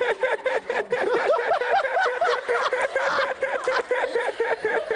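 A person laughing hard: a long, unbroken run of quick high-pitched 'ha' sounds, about five or six a second.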